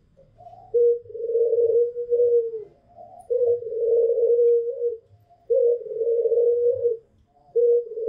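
White domestic ringneck doves (puter) cooing: three long, drawn-out coos at a steady pitch, each with a short higher note at its start, and a fourth coo beginning near the end.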